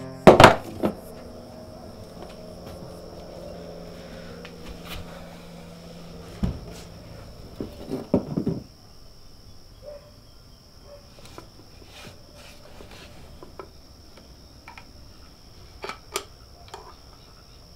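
Scattered knocks and clicks of objects being handled and set down on a wooden workbench, loudest just after the start and in a cluster around six to eight seconds in. Under them runs a steady high chirring of crickets.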